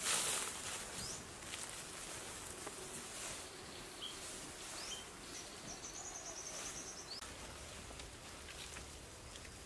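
Loose dry soil flung onto an earth mound with a brief whoosh right at the start, then soft scraping and rustling of soil being raked and scooped by hand. Short high chirps and a brief fast trill come from wildlife in the background.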